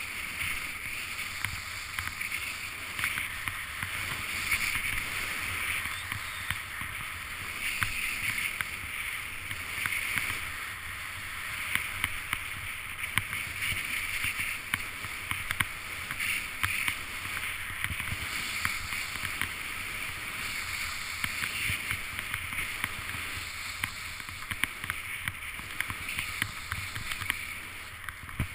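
Skis sliding over snow, a swishing hiss that swells and fades with each turn, mixed with wind on the microphone and scattered small clicks and knocks.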